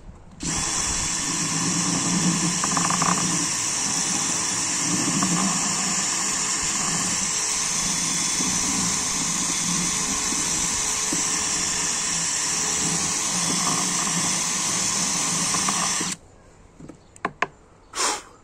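DeWalt DCD777 20V brushless cordless drill running steadily in low-speed gear (setting 1), driving a rotary rasp bit that grinds into a hand-held piece of wood. The drill stops about sixteen seconds in.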